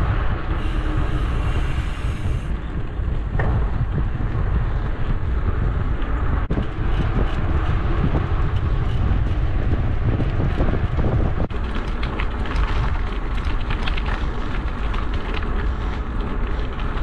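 Wind buffeting the microphone of a camera on a moving mountain bike, over the rumble of its tyres on asphalt, with now and then a light click or rattle.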